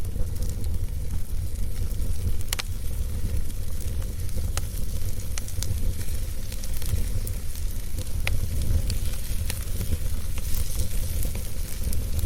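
Wood fire crackling in a fireplace: a steady hiss with scattered sharp pops every second or two, over a steady low rumble.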